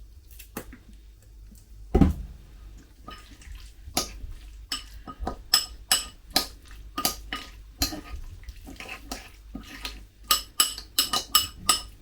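A utensil clinking against a bowl while stirring sweet corn relish: quick runs of taps that each ring briefly, getting busier as it goes on, with one heavier knock about two seconds in.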